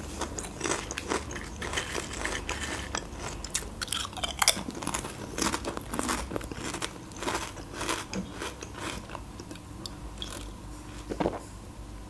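Close-miked crunchy chewing of potato chips: a dense run of crisp crunches that thins out after about nine seconds.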